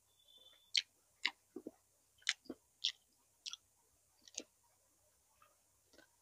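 Close-up eating sounds: wet mouth smacks and chewing clicks as boiled pig's tail stew is eaten, about ten short, sharp, irregular smacks over the first four seconds or so.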